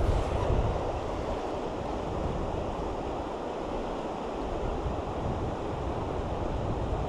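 Shallow river water running over stones in a riffle: a steady rush of water, with wind rumbling on the microphone.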